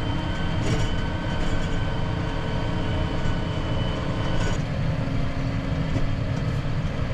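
Steady engine and road rumble of a moving vehicle heard from inside the cab while being driven; the engine note changes about halfway through.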